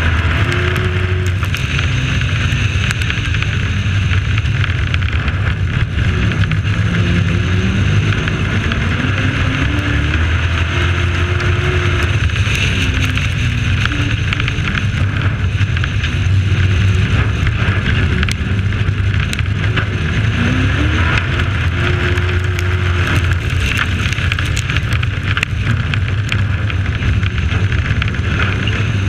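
Race truck engine heard from an onboard camera, running hard at racing speed, its pitch rising and falling repeatedly as it accelerates and backs off around the oval, over a steady rush of wind and road noise.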